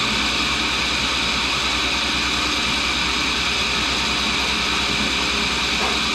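1942 Cincinnati tool and cutter grinder running, its motor and cup grinding wheel spinning at speed: a steady high hiss over a low, rapidly fluttering hum.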